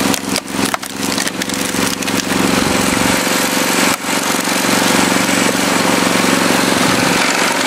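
Tractor engine running steadily as it drives a tractor-mounted hydraulic log splitter, with a few sharp cracks of wood splitting in the first second and a half.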